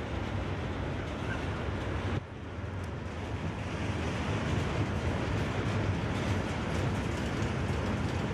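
Freight train rolling past at speed: a steady rumble of wheels on rail, with a short break about two seconds in after which it carries on a little louder.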